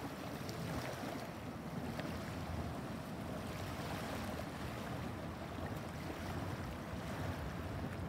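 Small waves on the Potomac River lapping steadily at the shore, with wind buffeting the microphone.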